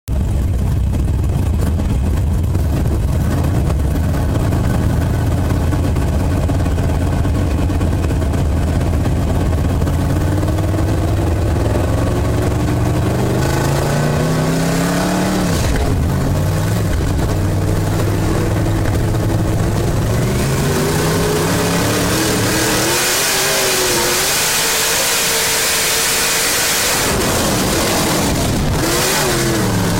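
Dirt-track race car engine heard from inside the cockpit. It rumbles low at slow speed, then revs up in rising sweeps from about halfway, with a brief lift-off in the middle. In the last third it runs hard at speed under a growing rush of wind and track noise, its pitch rising and falling with the throttle.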